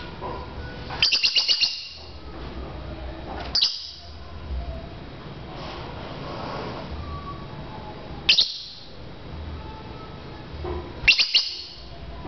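Lovebird giving sharp, high chirps in short groups: a quick run of about five chirps a second in, single chirps near four and eight seconds, and another quick run near the end.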